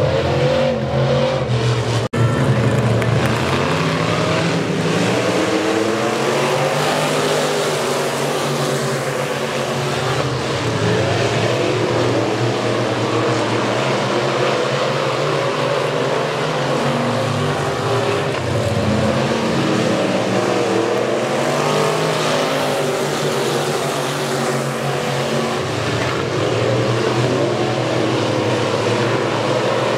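Dirt-track race cars running on the track, several engines revving up and down as they go around. The sound drops out briefly about two seconds in.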